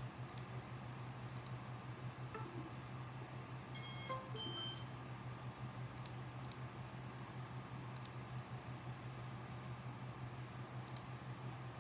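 Two short electronic computer chimes in quick succession, about four seconds in, as the flight controller reboots and its USB connection drops. Under them runs a steady low hum, with a few faint mouse clicks.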